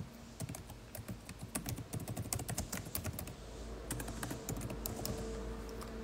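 Typing on a keyboard: a quick, irregular run of key clicks, densest in the first half and thinning out later.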